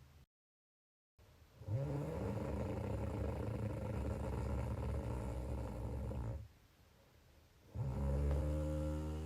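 Snoring: after a brief cut to dead silence, one long, low, droning snore of about four and a half seconds, a short pause, then the next snore starting near the end.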